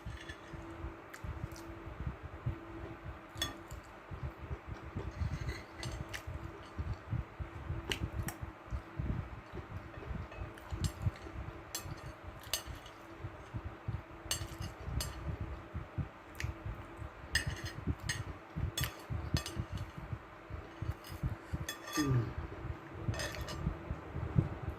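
A metal fork and knife clinking and scraping against a plate in scattered, irregular taps while someone eats, with close-up chewing between the clinks.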